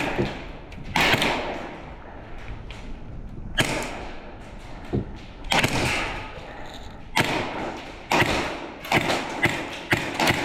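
Irregular thumps and sharp knocks from an airsoft game in play, with several quick clusters of sharp cracks in the later part.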